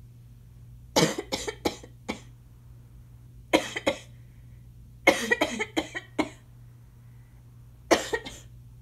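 Asthma cough: four fits of quick, harsh coughs, three to six coughs in each, starting about a second in, then around three and a half, five and eight seconds in.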